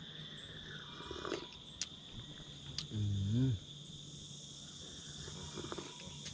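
Steady high-pitched drone of insects throughout, with a few faint clicks. About three seconds in comes a man's short low hum, the loudest sound.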